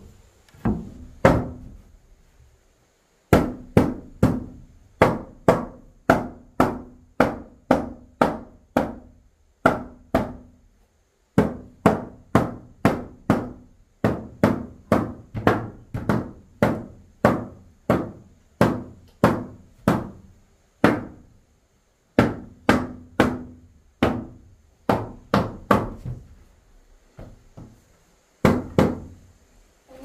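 Hammer blows on wood, a steady run of sharp strikes with a short ring, about two a second, broken off a few times by brief silences.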